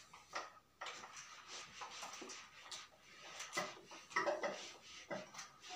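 A whiteboard eraser being rubbed across a whiteboard, making a soft, uneven rubbing hiss.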